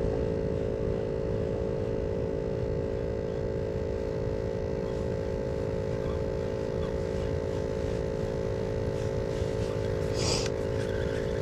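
A steady hum over an even low rumble, unchanged throughout, with a few faint clicks near the end.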